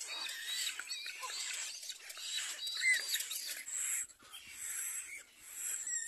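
Little black cormorant chicks in the nest giving high, squeaky begging calls: many short squeals that rise and fall, overlapping, with one sharper squeal about three seconds in, over a steady high hiss.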